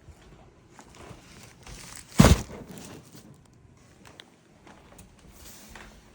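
Packaging being handled: faint rustling and small knocks, with one loud thump about two seconds in.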